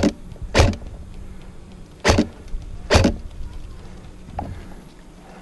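Airsoft rifle firing single shots: four sharp reports in the first three seconds, unevenly spaced, followed by a fainter knock.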